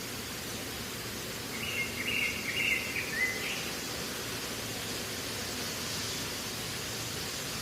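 Steady outdoor ambient hiss with a short burst of bird chirping about two seconds in.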